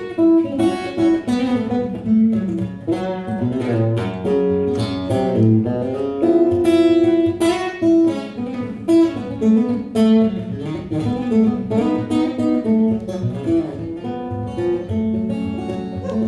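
Acoustic guitar playing an instrumental break in a song, a run of changing picked notes.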